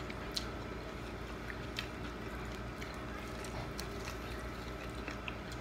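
Steady background hum with faint, scattered clicks and smacks of eating: biting into corn on the cob and peeling boiled shrimp.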